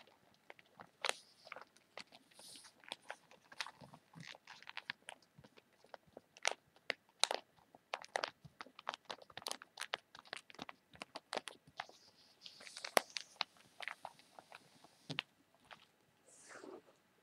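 Fingertips tapping, scratching and crinkling the pages of an open newspaper: a dense run of small sharp clicks on the newsprint, with a few brief rustles of paper.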